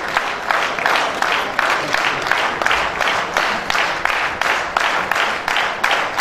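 A crowd clapping together in a steady rhythm, about three claps a second.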